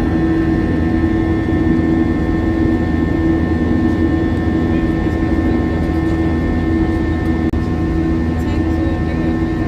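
Airbus A321 in the climb, heard inside the cabin: its IAE V2533 turbofan engines at climb thrust make a steady low rumble with several constant hums layered over it.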